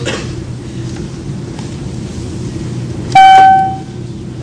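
A single flight attendant call-button chime: one bright ding about three seconds in that rings out for under a second. Under it runs a steady aircraft cabin hum.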